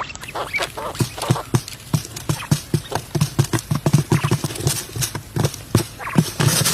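Rapid, irregular knocking, about three to four short knocks a second.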